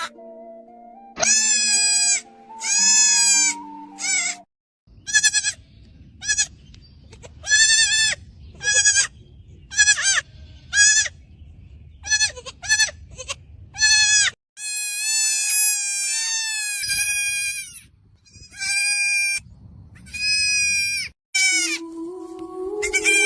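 Young goat kid bleating over and over: many short, high-pitched bleats in quick succession, then a few longer, drawn-out bleats. Background music plays under it at the start and returns near the end.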